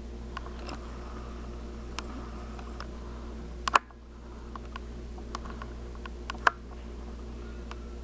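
Camcorder handling noise: scattered sharp clicks and taps over a steady hiss, the loudest pair a little before halfway and again about four-fifths of the way in, the first followed by a brief dip in the hiss as the camera zooms.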